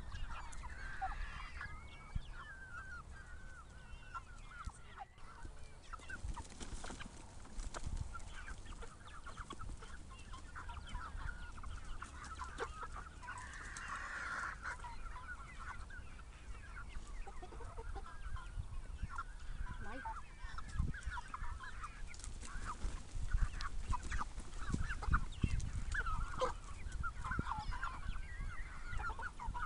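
A flock of domestic chickens clucking and calling continuously while feeding on corn, many short overlapping calls at once.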